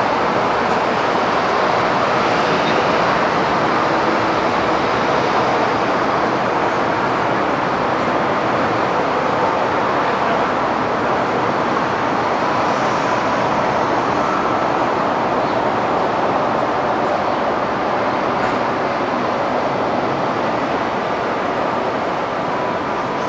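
Steady airport noise: a continuous roar of aircraft engines across the apron, with faint thin whines appearing past the middle.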